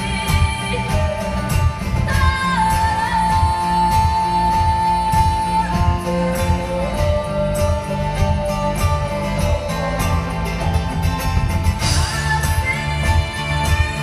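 Live band music: a steady drum and bass beat under a long-held melody line whose notes slide from one pitch to the next.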